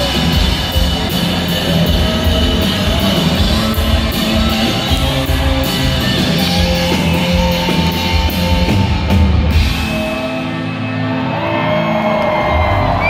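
Live rock band playing, with electric guitar and a drum kit keeping steady cymbal hits. About nine seconds in the drums drop out and the band thins to held guitar tones.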